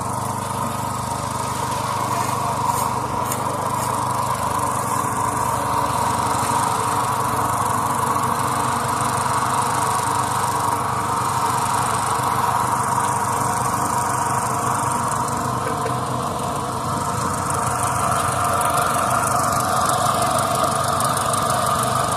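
A small engine running steadily at constant speed, a machine at work on the concrete pour.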